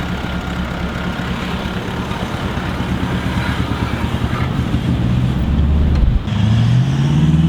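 Toyota LandCruiser 200 series V8 engine pulling under load while driving on sand, its note slowly building. About six seconds in it dips briefly, then the revs climb.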